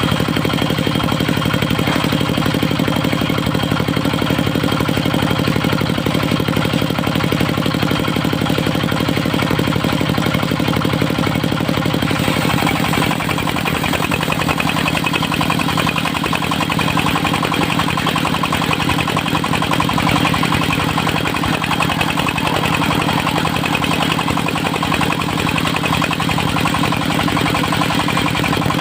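Engine of a portable circular-saw sawmill running steadily at a constant speed. About twelve seconds in the sound turns harsher, with a high hiss laid over the engine.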